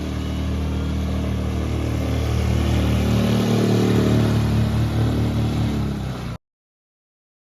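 Small boat outboard motor running under way, growing louder toward the middle with a slight rise in pitch, then cutting off suddenly near the end.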